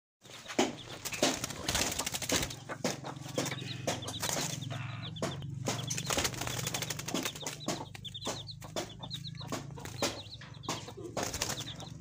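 Caged birds fluttering and flapping their wings in a net enclosure, with many quick flutters and knocks and repeated short high chirps. A steady low hum runs underneath.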